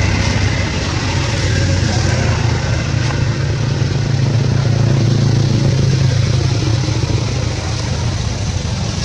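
A steady low engine drone with a constant hiss over it, unbroken throughout.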